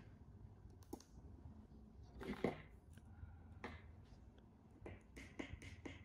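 Scattered small clicks from fingers pressing the buttons of 433 MHz remote fobs and the learning button of a 12 V single-channel relay receiver board. A louder handling rustle comes about two and a half seconds in.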